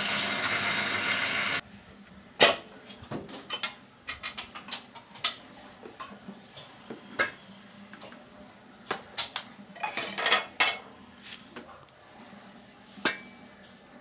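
A steady machine noise stops abruptly after about a second and a half. Then come scattered metal clinks and knocks as tools and parts are handled at a screw press. The loudest is a sharp clink just after the noise stops, with another near the end.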